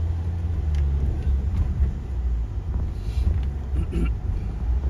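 Low, steady rumble of a car's engine and tyres heard from inside the cabin while driving.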